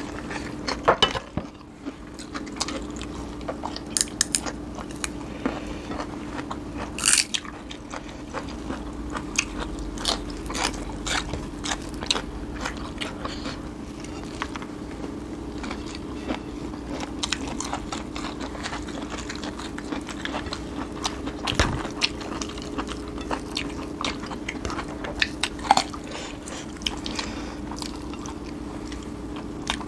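Two people chewing and biting food, with many short crunches and clicks of fingers and a spoon against plates, over a steady low hum.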